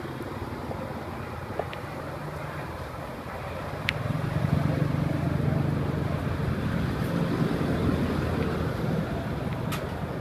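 Street traffic: a motor vehicle's engine running close by, growing louder about four seconds in and easing off near the end, with two sharp clicks.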